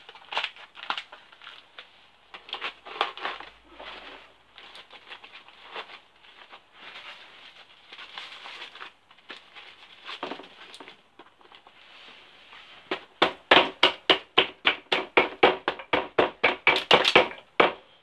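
Scrap aluminium foil crinkling as it is scrunched into balls and pressed into a metal brick mould. In the last few seconds a fast run of hammer blows, about five a second, packs the foil down into the mould; these knocks are the loudest part.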